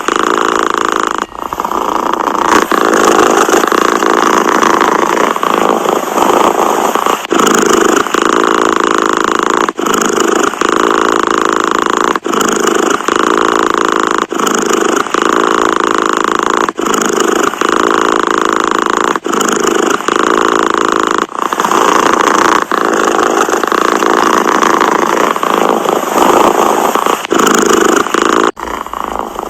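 Domestic cat purring close up, a loud steady purr with a brief break every two seconds or so.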